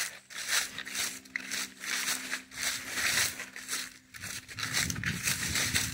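Footsteps crunching through dry fallen leaves, about two steps a second, with a faint steady hum underneath.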